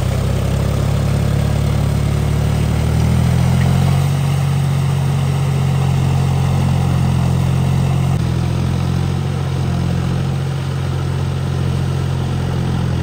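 John Deere tractor's diesel engine running at a steady speed with a low, even note, growing slightly louder about three seconds in.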